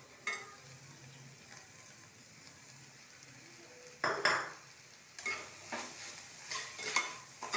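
A spoon stirring and scraping grated watermelon rind and sugar in a stainless-steel pan, in short strokes about two a second starting about four seconds in, over a faint sizzle of the rind cooking in ghee. A single brief clink comes near the start.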